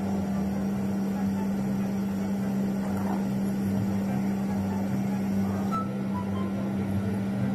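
A steady low hum with a wavering lower rumble underneath.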